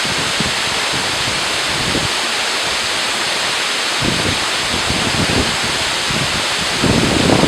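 Waterfall rushing with a steady roar of falling water, with wind buffeting the microphone about halfway through and again near the end.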